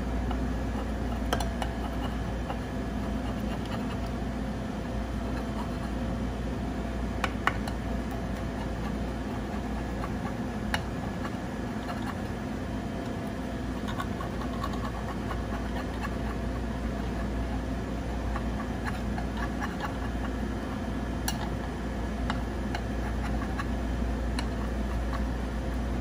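Steady machine hum, with a few light clicks and scrapes of a knife against a metal muffin pan as baked egg cups are loosened around their edges.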